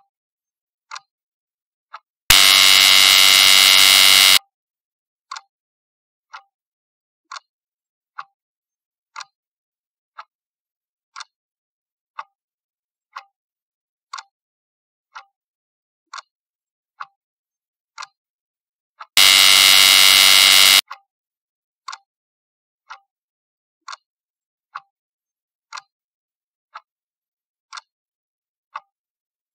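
Countdown-timer sound effect: a clock ticking about once a second, interrupted twice by a loud buzzer lasting about two seconds as the countdown runs out, about two seconds in and again about nineteen seconds in.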